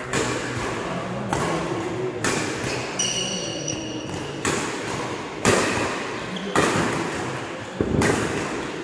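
Badminton doubles rally: rackets striking a shuttlecock about once a second, each hit a sharp crack. A high squeak, typical of court shoes on the floor, comes about three seconds in.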